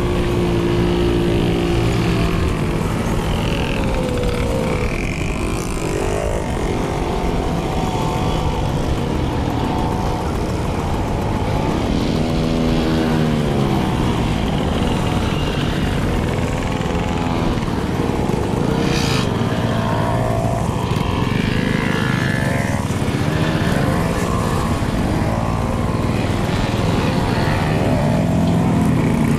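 Several two-stroke moped engines running together, their pitches rising and falling as they rev, with their sounds overlapping.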